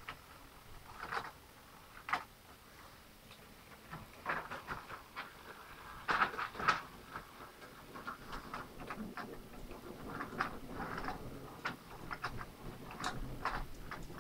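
Model railway train running along the track, its wheels clicking irregularly over the rail joints, the clicks coming more often from about four seconds in.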